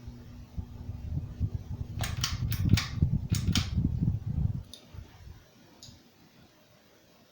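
Ceiling fan pull-chain switches on a Hampton Bay San Marino and a Westinghouse Richboro SE clicking as one long shared chain is pulled. There are two quick groups of clicks, about two and three and a half seconds in, over a low rumble of chain and handling noise. A low fan-motor hum fades out at the start, and two faint ticks come after the rumble stops.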